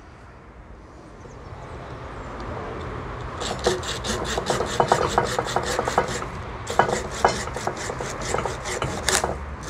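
A small hand pruning saw cutting through a bonsai branch: two runs of quick rasping strokes, several a second, with a short pause between them a little past the middle.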